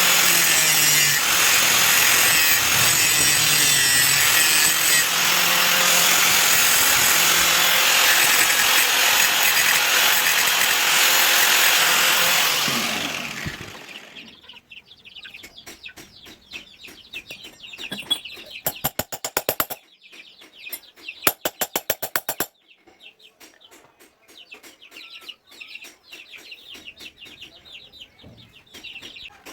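A power tool grinding a steel knife blank runs loudly and stops about thirteen seconds in. Then come quieter bursts of rapid scraping strokes on the metal.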